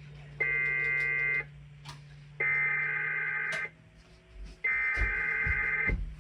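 Emergency Alert System SAME header: three bursts of buzzy two-tone digital data, each about a second long and about a second apart, opening a Required Weekly Test. A steady low hum lies underneath.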